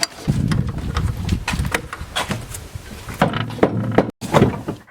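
Repeated clinks, knocks and handling noises of hand tools and loose engine parts being worked on under the hood, with a low rumble through the first second or so.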